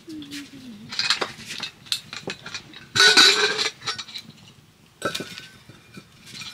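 Cooking pots and utensils clinking and clattering as they are handled: a string of sharp knocks, with the loudest clatter about three seconds in.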